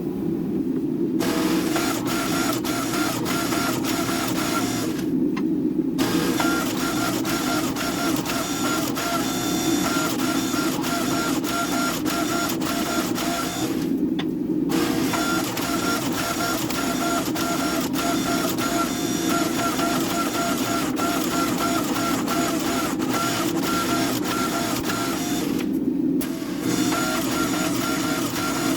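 Shop machinery running steadily: a constant low rush under a higher whine, with many small clicks. The whine cuts out briefly three times.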